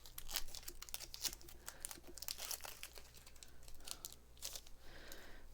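Foil wrapper of a Pokémon TCG booster pack crinkling and tearing as it is opened: a quick, irregular run of faint crackles that thins out toward the end.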